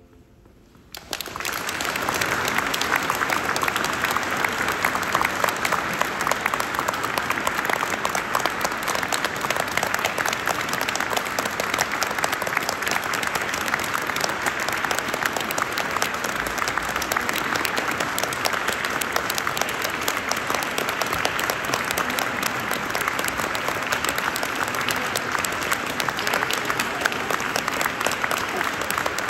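Audience clapping, starting about a second in and going on as steady, dense applause.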